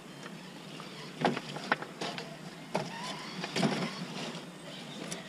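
Radio-controlled scale crawler truck's small electric motor whining as it crawls over loose rocks, with several irregular knocks and clatters of its wheels and chassis on the stones.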